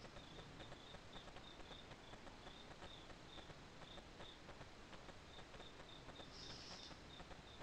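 Faint night insects chirping: a steady run of short, high chirps about three a second over a low hiss, with a brief higher rasp near the end.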